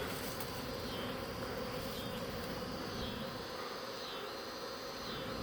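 A swarm of honey bees buzzing steadily in the air around a hive box, just after being shaken down from a tree limb.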